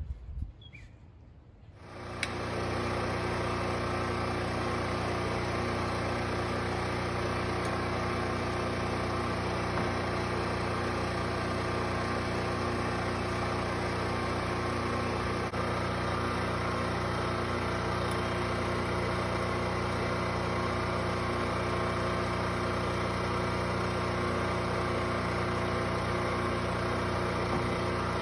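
Westinghouse WGen7500 portable gasoline generator engine running steadily at no load, coming in suddenly about two seconds in and holding an even, constant note.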